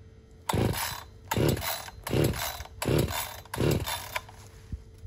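Echo CS-620P two-stroke chainsaw being pull-started from cold: five quick yanks of the recoil starter rope, the engine turning over with each pull but not catching. The owner blames this on bumping the choke in with his leg while starting it.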